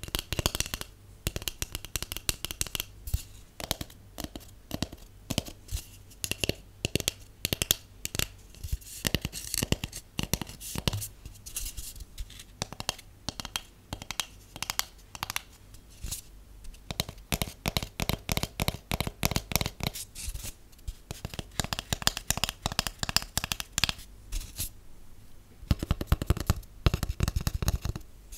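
Fast fingernail tapping on a hollow cardboard tube, with long acrylic nails and short natural nails clicking in rapid runs of many taps a second. The tapping comes in bursts, thinning out in places and running fastest and loudest near the end.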